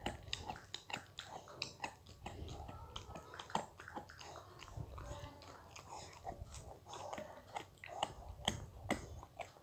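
Irregular soft clicks and crackles close to the microphone, several a second, over a low rumble.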